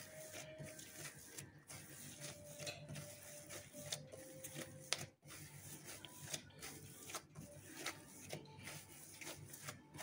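Hands kneading a soft dough against a granite countertop: faint, irregular squishing and pressing with small clicks and taps as the dough is folded and pushed.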